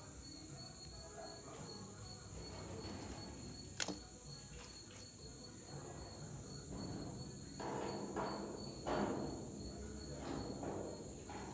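Crickets trilling steadily and high-pitched. A single sharp click comes about four seconds in, and a few short rustling or scraping sounds come near the end.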